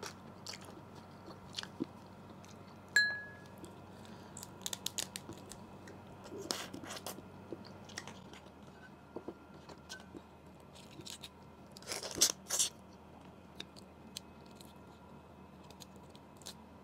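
Close-miked eating of cooked blue crab: chewing, with scattered small clicks and crunches as the crab meat and shell are picked apart by hand. About three seconds in a sharp clink rings briefly, and a few seconds before the end a short run of louder cracks, like shell being broken.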